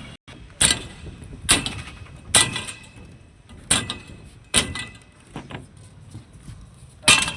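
Heavy blows struck about once a second, seven in all with a weaker one near the middle. Each is a sharp impact with a short metallic ring, like a hammer striking metal during construction work.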